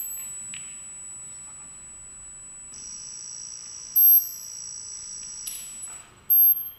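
Electronic sound-design soundtrack of pure high-pitched tones: a steady thin whine held until near the end, a second, lower tone joining about three seconds in, and three short piercing beeps, at the start, about four seconds in, and near the end.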